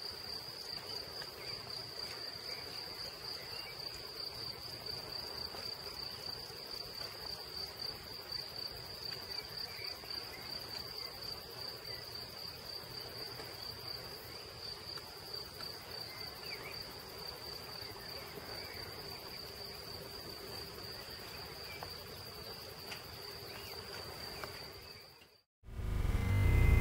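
Steady high-pitched insect chirring over a fainter low hum in an outdoor field recording; it cuts off suddenly near the end.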